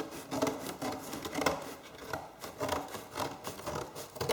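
Scissors cutting through sheet material in a steady run of snips, about two to three a second.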